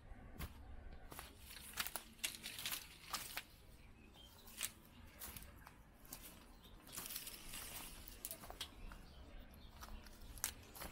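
Footsteps crunching and scuffing on gritty ground, with irregular sharp crackles about every half second.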